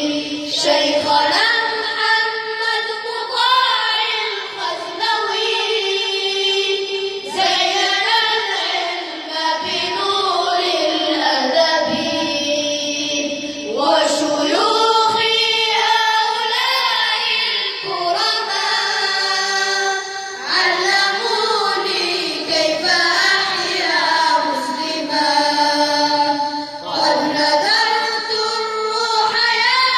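A group of young students singing an Arabic devotional praise song (madih) together, with long held notes that waver and glide in ornamented runs.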